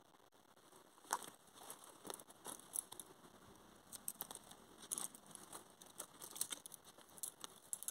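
Wooden lace bobbins clicking and knocking together as they are lifted and crossed over a lace pillow: a scatter of light, irregular clicks.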